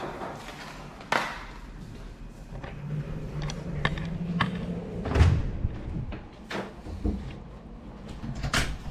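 Knocks, clicks and thumps of objects and the camera being handled close to the microphone, a handful of sharp hits spread irregularly, the loudest thump about five seconds in.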